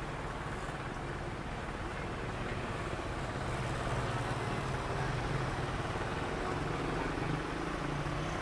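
Steady engine drone and rushing air noise heard from inside an aircraft cabin, swelling slightly partway through.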